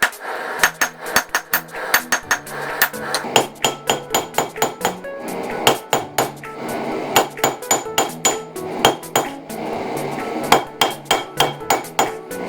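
Blacksmith's hammer striking a hot railroad spike on an anvil, in quick runs of about three blows a second with short pauses, as the steel is drawn out for the jaws of slot jaw tongs.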